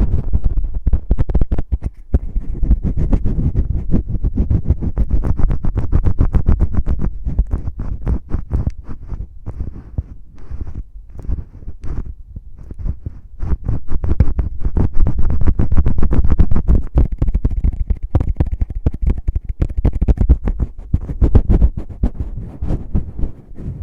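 Fingers rapidly scratching and rubbing the artificial ears of an ear-shaped ASMR microphone, a close, continuous run of scratchy strokes with heavy muffled thuds.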